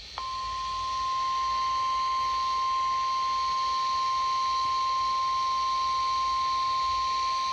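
NOAA Weather Radio 1050 Hz warning alarm tone: one steady, unbroken high tone that comes on just after the start, over faint radio hiss. It signals that a warning broadcast, here a special marine warning, follows.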